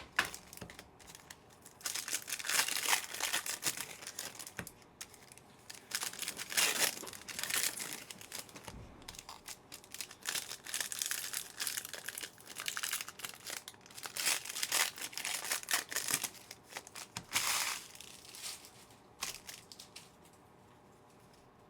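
Trading card pack wrappers crinkling and tearing as packs are opened and handled, in irregular bursts that stop shortly before the end.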